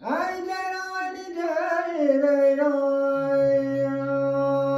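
A man singing unaccompanied in a traditional Persian vocal style: a wavering, ornamented phrase that settles into one long held note. A lower steady hum joins beneath it about three seconds in.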